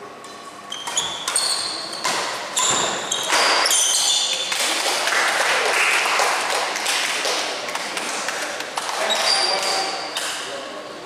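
Badminton shoes squeaking on an indoor court, with sharp racket hits on the shuttlecock during a doubles rally. In the middle, a loud spell of crowd noise lasting a few seconds.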